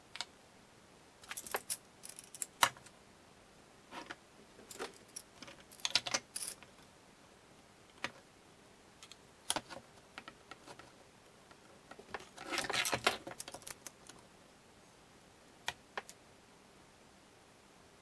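Metal bar clamps clicking and clattering as they are handled, slid shut and tightened onto a small wooden workpiece. The clicks come in irregular bursts, the longest about twelve to thirteen seconds in.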